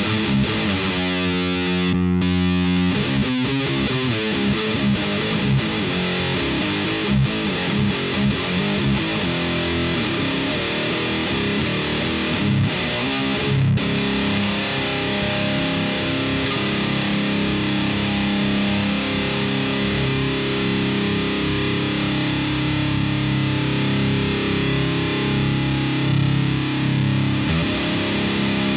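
Heavily distorted electric guitar played through a thiSHEAvyearth Grim distortion pedal. It plays a choppy riff with short, rhythmic notes, and the notes turn into longer held chords over the second half.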